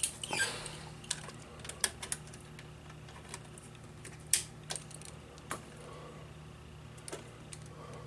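Scattered light clicks and taps, about a dozen, irregularly spaced, from small parts and equipment being handled on an electronics workbench, with the loudest about four seconds in. A steady low hum runs underneath.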